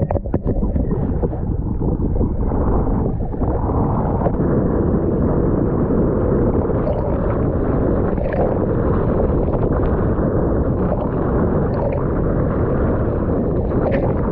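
Steady wind rumble on the microphone mixed with rushing water, loud and without pause, with a few faint knocks.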